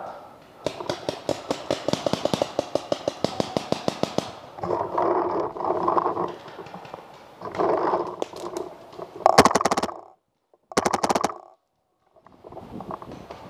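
Paintball marker firing a rapid string of shots, several a second, for about three and a half seconds, then shorter bursts of shots later on.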